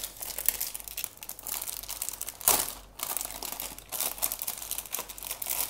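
Clear plastic polybag crinkling and crackling as hands handle it and slide a plastic model kit runner out of it, with a louder crackle about two and a half seconds in.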